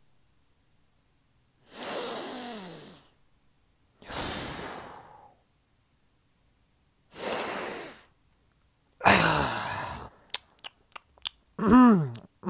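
A person's loud, breathy sighs, four of them a couple of seconds apart, each falling in pitch. Near the end come several quick clicks and a short voiced vocal sound.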